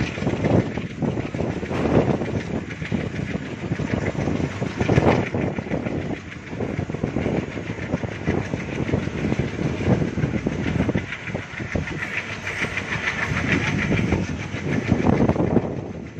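Train passing close by, its coach wheels clattering steadily over the rail joints, with a brighter hiss joining in for a few seconds after the middle.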